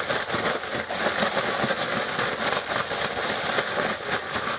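Chicken strips being shaken in a plastic bread bag with a shake-and-bake crumb coating: a steady, rapid crinkling and rustling of the plastic, with the coating pattering inside.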